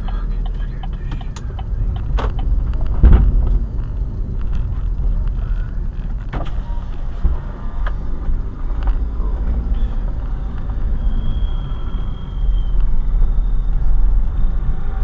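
Car cabin noise at low road speed: a steady low engine and tyre rumble, with a few sharp knocks, the loudest about three seconds in.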